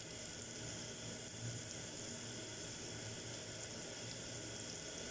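Onions sizzling in a non-stick pan over a gas burner: a steady, quiet hiss.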